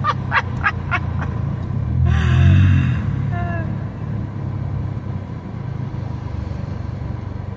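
Car driving slowly, heard from inside the cabin as a steady low engine and road rumble. There is a brief louder, noisier burst about two seconds in.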